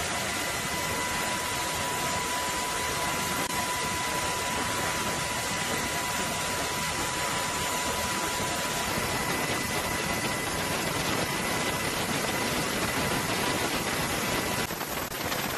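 Steady rushing mechanical noise with a constant high whine. Near the end it changes to a fast, dense crackle.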